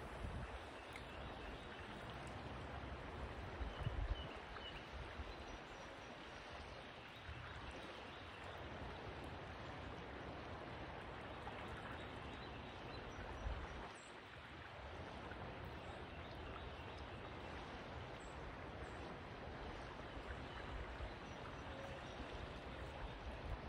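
River water flowing steadily through shallows, an even rushing, with a couple of brief low thumps about 4 and 13 seconds in.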